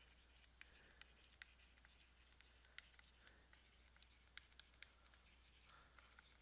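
Near silence broken by faint, irregular taps and clicks of a stylus writing on a tablet, over a low steady hum.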